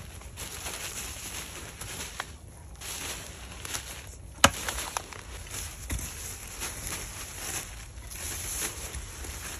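Perlite poured in handfuls from a plastic sack into a planting hole, with the bag rustling, and a shovel scraping and tipping loose soil into the hole. A sharp knock about four and a half seconds in.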